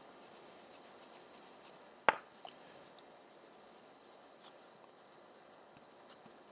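Toothbrush bristles scrubbing a circuit board to lift alcohol-dampened residue, about five quick strokes a second for two seconds, then one sharp knock as the toothbrush is set down on the bench, followed by faint handling ticks.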